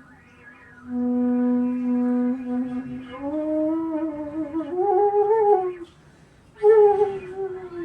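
E bass bansuri (bamboo flute) playing slowly: a long, steady low note, then a phrase climbing step by step through several held notes with a slight wavering in pitch. After a short breath pause, a louder phrase comes near the end.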